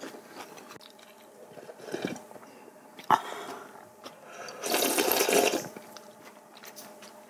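A person slurping noodle-soup broth straight from a ceramic bowl: one long slurp about five seconds in, with a short knock a little before it.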